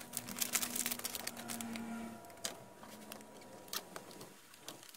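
Scattered light clicks and rattles of hands handling an opened laptop's plastic and metal parts during reassembly, over a faint steady low hum that stops about two seconds in.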